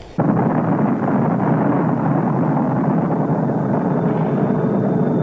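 Steady explosion rumble from the sound track of archival nuclear-blast footage, starting abruptly a moment in.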